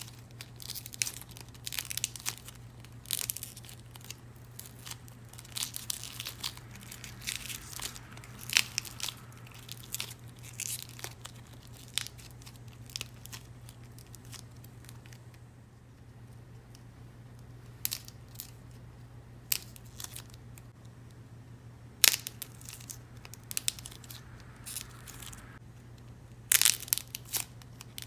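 A dried clay sheet being bent and cracked by hand: irregular crisp snaps and crackles in clusters, with a quieter stretch about halfway through.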